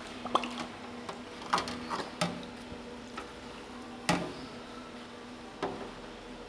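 Greasy kitchen ventilation fan parts being handled in alkaline electrolyzed-water cleaning solution: scattered wet knocks and small splashes, about five in all, the loudest about four seconds in. A faint steady hum runs underneath.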